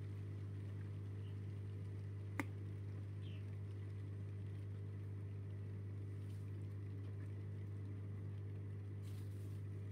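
A steady low mechanical hum, with one sharp click about two and a half seconds in.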